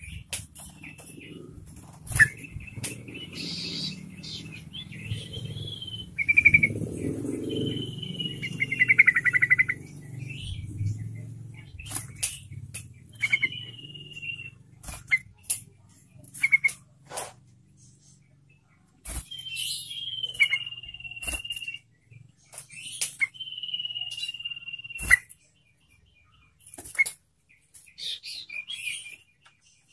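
Sooty-headed bulbul (trucukan) calling: a string of short whistled phrases, several held notes sliding gently downward, with sharp clicks between them.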